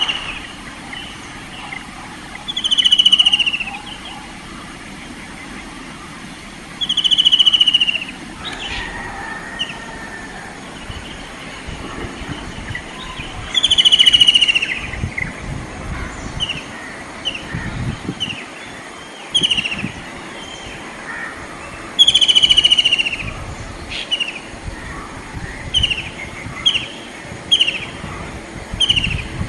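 White-throated kingfisher calling: loud falling whinnying trills, each about a second long, repeated about five times, with shorter falling notes between them and a quick run of them near the end.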